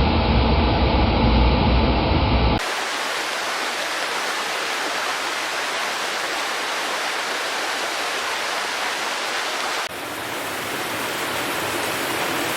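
Steady rushing water with heavy rain, a dense wash with no distinct events. It changes abruptly twice: a deep, heavy rumble at first, a thinner hiss from about two and a half seconds in, and a fuller wash again from about ten seconds in.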